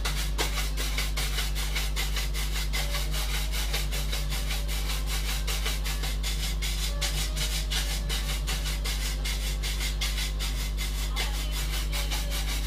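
Stiff-bristled brush scrubbing back and forth over a carved wooden panel, about four to five quick strokes a second, buffing the wood to a shine. A steady low hum runs underneath.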